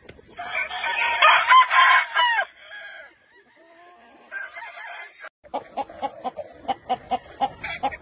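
A rooster crows once, loud and drawn out for about two seconds, ending on a falling note. In the second half comes a steady run of short clucks, about three or four a second.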